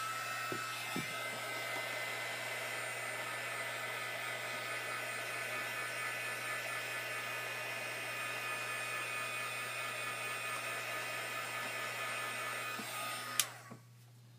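Craft heat gun (embossing heat tool) running steadily, a blowing rush with a fan whine, as it dries wet watercolour on paper. It rises to speed at the start and is switched off with a click about a second before the end, when the sound stops.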